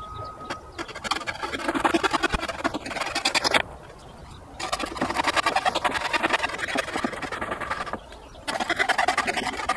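Saw cutting through pallet wood in three bouts of quick, rasping strokes, with two brief pauses between them.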